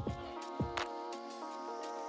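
Background music: held chords over a steady drum beat with kick drum and hi-hat strokes.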